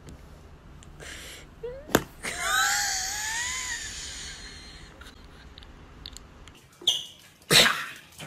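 French bulldog giving a high-pitched squealing whine that rises and falls for about a second and a half, just after a sharp knock. Near the end come two short, loud breathy bursts.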